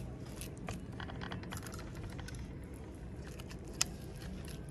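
Irregular light clicks and taps as hands work fish pieces through a thick gram-flour batter in a steel platter, fingers and fish knocking and scraping on the metal, with one sharper tick near the end.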